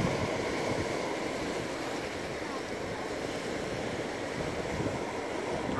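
Sea surf breaking and washing over a stony shore: a steady rushing noise.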